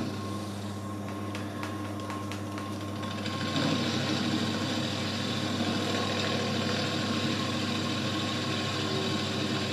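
TAIG micro mill running: its motor and spindle hum steadily, with a few light clicks in the first two seconds. About three and a half seconds in the sound grows louder and harsher as the end mill cuts aluminium.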